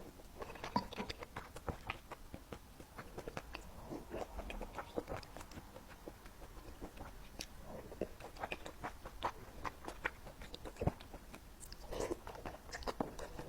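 Close-miked chewing of soft, wet food, with many small, irregular mouth clicks and smacks: a person eating century-egg wontons.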